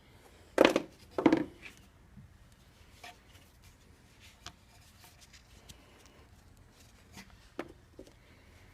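Two loud knocks about a second in, then scattered light clicks and taps and another knock near the end: hand tools and parts being handled during the transmission repair.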